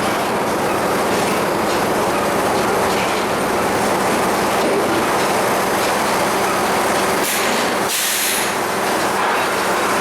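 Sawmill machinery running steadily with a continuous mechanical hum, with a brief hissing burst about eight seconds in.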